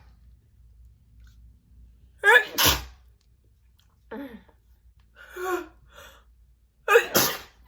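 A woman sneezing loudly twice, about two seconds in and near the end: wet, spitty, spraying sneezes, each a short rising 'ah' that breaks into a sharp spray of air. Two softer breathy vocal sounds come between them.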